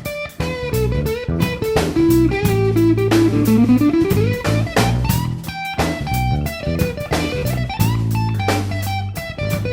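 Background music: a blues track with electric guitar, bass and drum kit, and a guitar line that slides down and back up about three to four seconds in.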